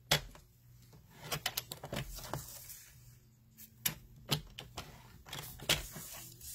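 Paper trimmer clicking and clacking as the cutting head is seated and slid down its rail over cardstock, with a cluster of sharp clicks about a second and a half in, more around four seconds, and several near the end. The blade slices through the cardstock where a score line was meant.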